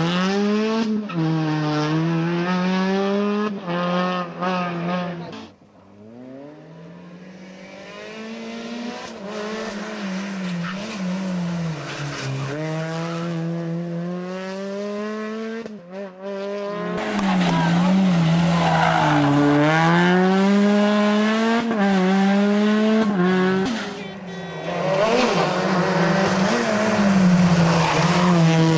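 Rally car engine at full throttle, its pitch climbing and dropping again and again through gear changes. The sound drops off suddenly about five seconds in, builds back up, and breaks off abruptly again around sixteen seconds before returning loud.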